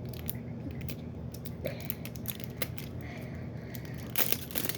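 Small clicks and rustles of toy packaging being handled and opened, with louder plastic crinkling near the end.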